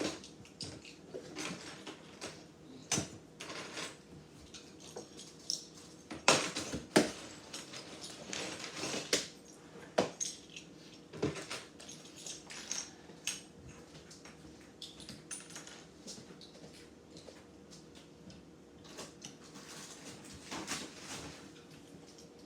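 Plastic Lego bricks clattering and clicking as pieces are picked through and snapped together. Irregular small clicks and rattles, with a few louder clacks about six to ten seconds in.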